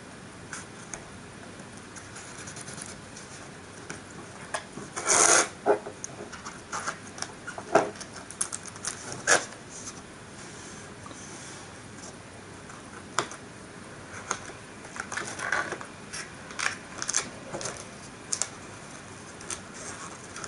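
Hands handling a small card model building on a desk: irregular scratches, taps and paper rustles as the walls and tabs are pressed and turned, with the loudest cluster about five seconds in.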